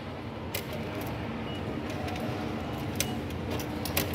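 Reserved-seat ticket machine's mechanism clicking and ticking irregularly as it processes the confirmed seat reservation and readies the ticket, over a steady low hum.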